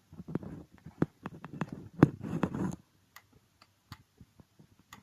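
Sharp metal clicks and taps of hands working on an industrial sewing machine's presser foot mechanism, loudest about two seconds in, thinning to faint scattered ticks in the last two seconds.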